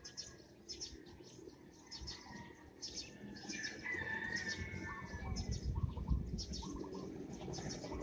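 Morning chorus of small birds: many quick, high chirps and twittering trills. A low rumble rises in the second half.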